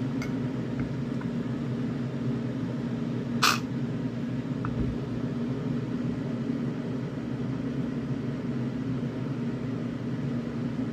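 Steady low mechanical hum of a running appliance, with one sharp click about three and a half seconds in and a few faint ticks.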